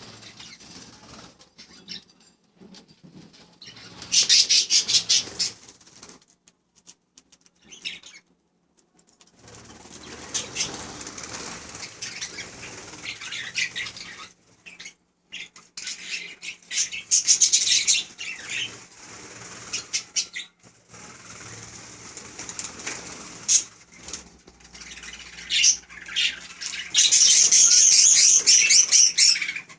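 Pet budgerigars chirping and chattering in rapid, high-pitched bursts, the longest and loudest burst near the end.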